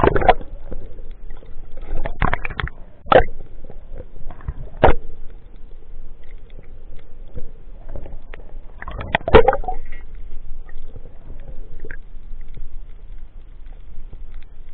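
Muffled underwater sound from a diver's camera: a low rumble of water, broken by sharp clicks and knocks at irregular intervals, with a dense cluster of them a little after nine seconds.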